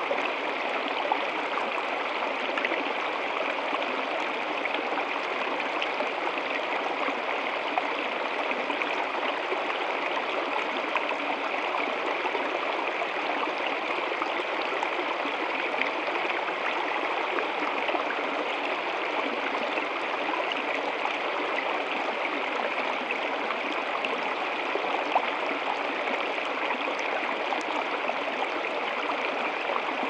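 Small stream spilling down a short rocky cascade into a shallow pool: running water splashing steadily without a break.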